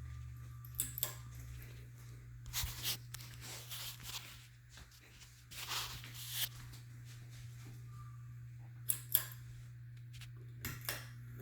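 Hunter Crown Canyon 52-inch ceiling fan, which has a bad capacitor, running with a steady low hum. Several brief clicks and rattles sound on top of it, the two strongest close together about nine seconds in.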